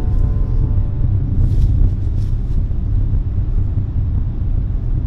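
A steady low rumbling hum. Faint held tones fade out in about the first second.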